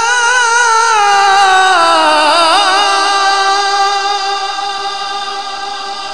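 A male qari's voice in melodic Quran recitation, holding one long wavering note that slides down about two seconds in and then slowly fades.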